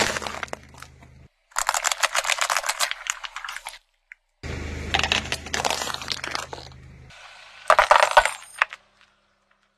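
A car tyre rolling over and crushing small packaged and jelly-like items: a sharp crunch at the start, then three separate bursts of dense, rapid crackling. A car engine idles low beneath some of them, and it falls almost silent near the end.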